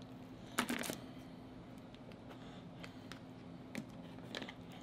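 King crab leg shell handled and broken apart by hand: a short cluster of cracking clicks about half a second in, then a few faint single clicks, over a faint low steady hum.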